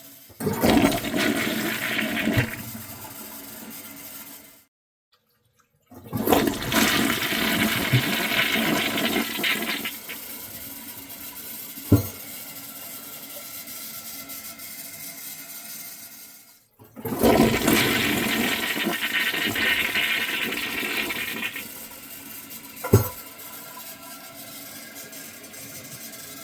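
Toilet flushed three times, each a loud surge of water lasting a few seconds that eases into a quieter steady rush of refilling, with a sharp knock after the second and third flushes. The flushes fail to clear a disposable pull-up from the bowl.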